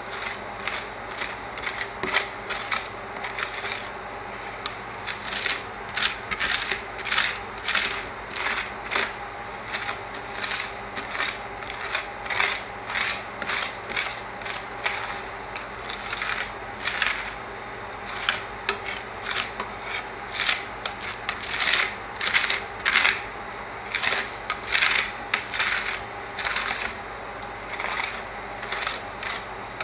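Steel spatulas scraping and tapping across the frozen metal plate of a rolled-ice-cream machine, spreading and smoothing the ice cream into a thin sheet. The scraping comes in short strokes, about one or two a second, over a steady faint hum.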